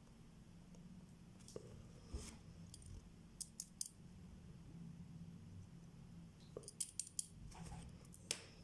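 Small, sharp metallic clicks and taps from watchmaker's hand tools working on a Vostok Amphibia wristwatch movement during disassembly. Three quick clicks come about three and a half seconds in, a cluster of four near seven seconds, and one more near the end.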